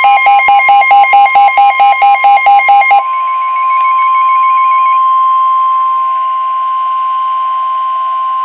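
Emergency weather radio alert: the NOAA Weather Radio warning alarm, a single steady high tone of about 1050 Hz, signalling that a warning, here a winter storm warning, follows. For the first three seconds rapid pulsing alarm beeps, about five a second, sound over it, then the steady tone carries on alone.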